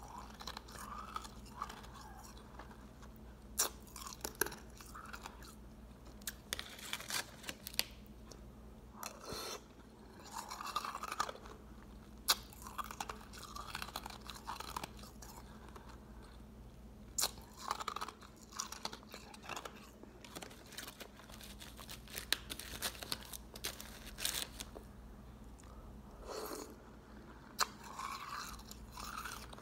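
Ice being bitten and chewed close to the microphone: irregular sharp crunches in clusters, with short pauses between bites.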